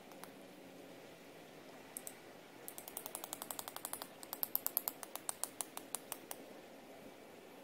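A rapid run of sharp clicks, about eight to ten a second, starting about three seconds in and stopping a little past six seconds.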